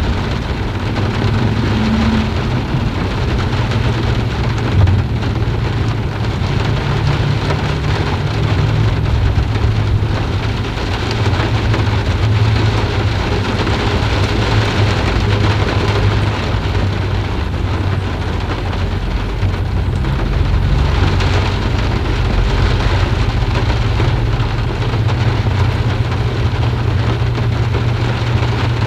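Steady heavy rain falling, an even hiss with a continuous deep low rumble underneath.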